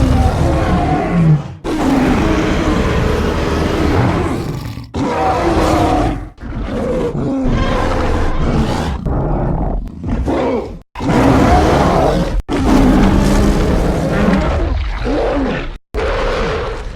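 A string of short creature roar and grunt sound effects of the gorilla or movie-monster kind, played one after another with abrupt cuts and brief gaps between them.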